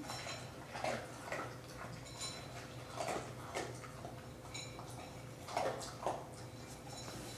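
Dog eating from a ceramic bowl: irregular crunching and clicks of teeth and food against the bowl, some with a brief ring from the bowl.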